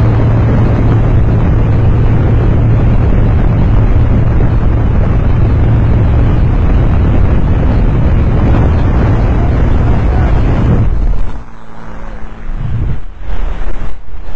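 Steady, loud drone of a small jump plane's engine and propeller heard inside the cabin, with a strong low hum. About eleven seconds in the drone falls away, and uneven gusts of freefall wind buffet the microphone.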